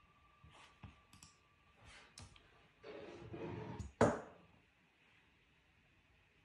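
Online spinning name wheel clicking faintly as it turns, a few scattered ticks, then one sharp click about four seconds in as the wheel comes to rest.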